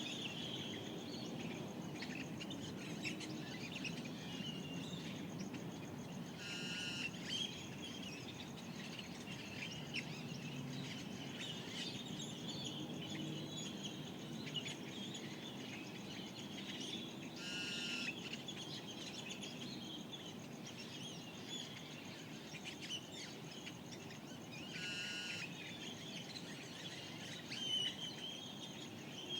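Dawn chorus of desert birds: many small birds chirping and calling over a low, steady ambient rumble. A louder call with several notes stands out three times, about ten seconds apart.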